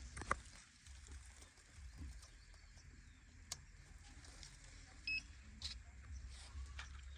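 Faint scattered clicks and taps from handling a toy RC tractor, with one short electronic beep about five seconds in, over a low steady hum.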